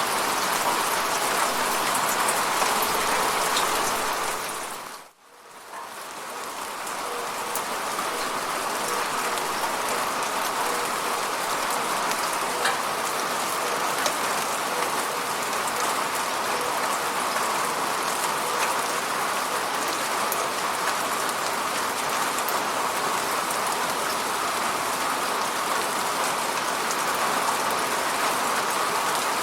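Steady rain hitting a window, with a dense hiss and scattered individual drop ticks. About five seconds in it dips away almost to silence, then fades back up over a couple of seconds.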